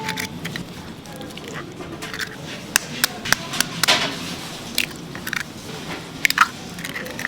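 Irregular clicks and knocks of utensils and containers at work in a bakery kitchen, with a denser clatter about four seconds in.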